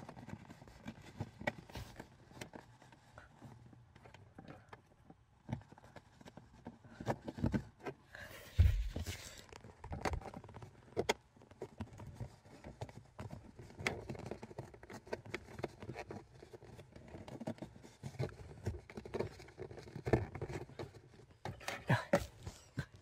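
Hands tucking a thin electrical cable into plastic dashboard and footwell trim: irregular clicks, taps and rustles of wire and fingers against the plastic, with one louder thump a little under nine seconds in.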